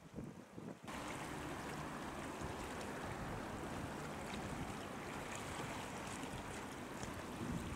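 Steady rush of sea waves and wind, starting abruptly about a second in. Before that it is quieter, with a few low wind thumps on the microphone.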